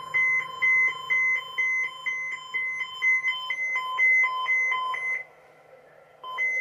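Weather alert radio sounding its alarm for a tornado watch: rapid electronic beeping in two alternating pitches, which stops about five seconds in and starts again about a second later.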